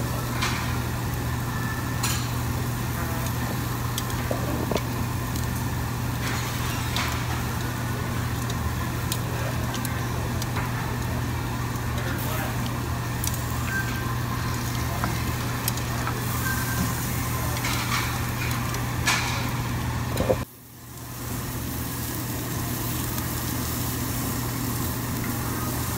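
Meat sizzling on a Korean barbecue tabletop grill under a steady low hum from the overhead exhaust hoods, with now and then a clink of metal tongs against the grill and dishes, and faint chatter behind. About twenty seconds in the sound drops out suddenly for a moment, then comes back.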